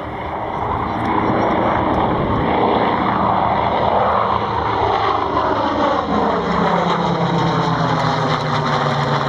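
Grumman F7F Tigercat's twin Pratt & Whitney R-2800 radial engines and propellers in a low fly-by. The sound grows louder over the first second, then drops steadily in pitch from about halfway on as the plane passes overhead and moves away.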